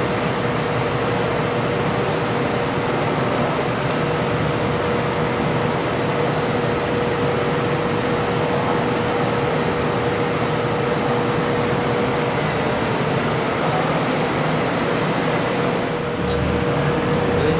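Steady mechanical whir like a fan or blower, with a constant thin hum running under it for most of the time.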